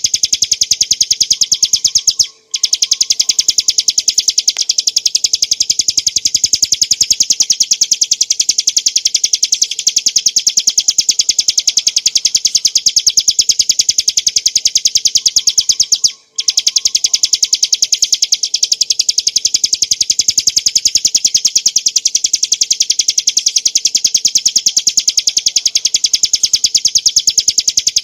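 Ciblek gunung, a small prinia, singing a continuous, very rapid stream of high, sharp notes, with two short breaks about 2 and 16 seconds in.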